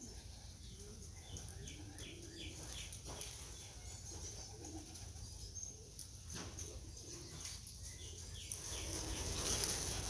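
Racing pigeons cooing in low, repeated calls, with short high chirps from birds and a couple of sharp clicks. A louder rushing noise rises near the end.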